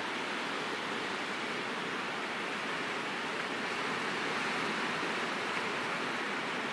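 Sea water washing on the shore, a steady even hiss without separate breaking waves.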